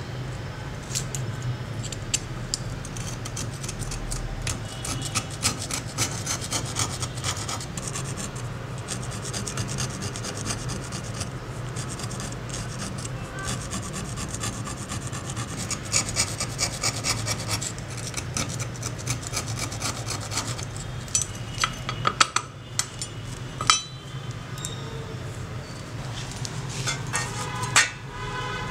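Flat-blade screwdriver scraping rust off a steel scissor blade around the pivot hole: a steady run of short scraping strokes, with a few sharper knocks near the end.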